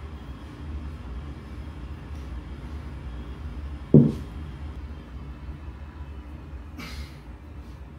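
A 100-pound kettlebell set down on a concrete floor about halfway through: one loud, dull thud. A steady low rumble runs underneath.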